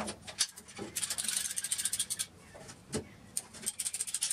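Blue PVC pipe and fittings being handled: a run of quick scraping, rattling noises about a second in, a single knock, then another short run near the end.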